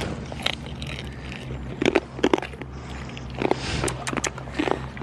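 Goats crunching treats taken from a hand: a scatter of short, crisp crunches and clicks, busier in the second half.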